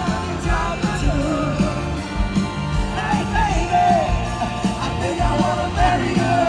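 Live pop-rock band playing at a concert, with bass and drums under a sung melody.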